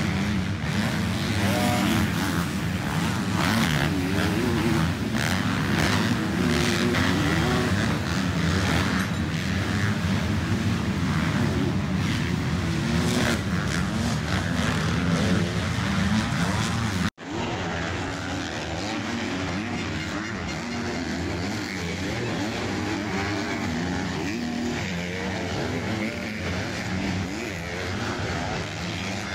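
Motocross bikes racing on a dirt track, their engines revving up and down in pitch as they accelerate and back off through the turns. The sound cuts out for a moment about halfway through, then carries on a little quieter.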